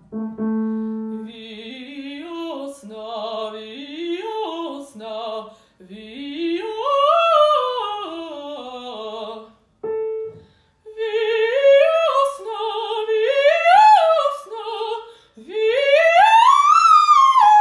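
Female opera singer's voice doing a fast vocal warm-up: quick runs up and down the scale, repeated on higher and higher pitches and climbing to a high top note near the end. A piano sounds the starting note at the beginning.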